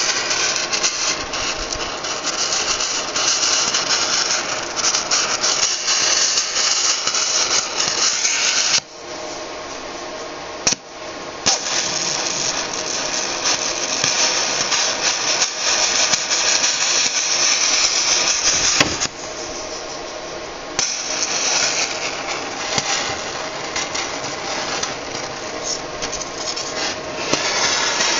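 Multiplaz 3500 plasma welding torch running, a steady hiss with fine crackling as it welds carbon steel. The hiss drops away twice briefly.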